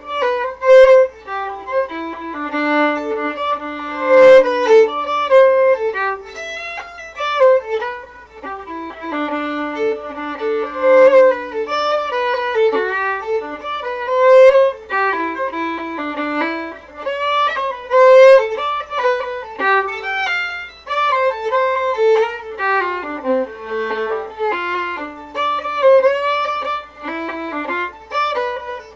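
Solo fiddle playing an Irish tune: a quick, continuous run of notes, with a held lower note sounding under the melody in places. There is a brief click about four seconds in.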